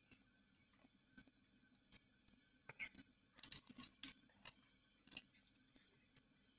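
Cat eating from a dish: faint, irregular clicks and crunches of chewing, coming thickest about halfway through.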